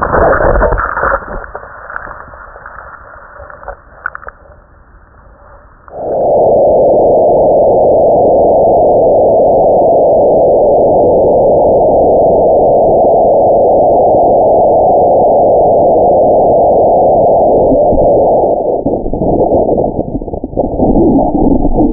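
Wind rushing over a helmet camera's microphone during a fast ski descent. A quieter, uneven stretch comes first, then a loud, steady rush from about six seconds in, which turns choppy and uneven near the end.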